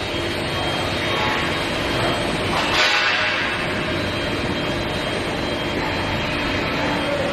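Steel pipe induction annealing line running: a steady industrial rumble and hiss with a few constant tones, swelling briefly about three seconds in.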